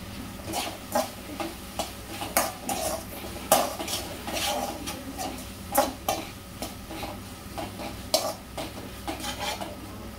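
Steel spoon stirring and scraping sliced onions and capsicum around a metal kadai, making irregular clinks and scrapes of metal on metal, with a few sharper knocks.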